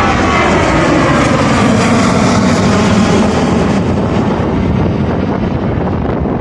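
Airliner's engines passing close by: a loud rushing noise with tones that glide steadily downward as the aircraft goes past, easing off slightly near the end.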